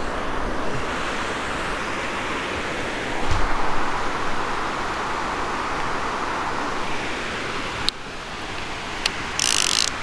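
Rod and reel handled and cast from a kayak: a few knocks and a sharp click, then near the end a brief high whirr of line leaving the reel. Under it runs a steady rush of flowing river water.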